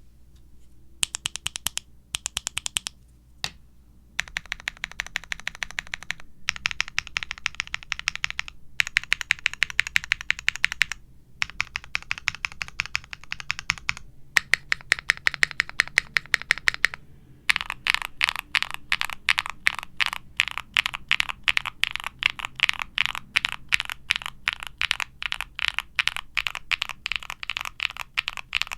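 Fast typing on a Qwertykeys Neo65 mechanical keyboard with a POM plate, PBT keycaps and lubed Gateron Baby Kangaroo switches fitted with nylon top housings, giving a marbly bottom-out sound. It comes in short runs of rapid keystrokes with brief pauses between them, then becomes continuous fast typing from a little past halfway.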